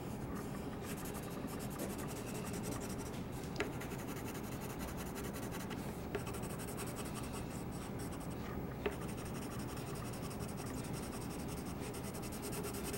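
Colored pencil scratching over black paper in quick, steady shading strokes, with a light tick about three and a half seconds in and another near nine seconds.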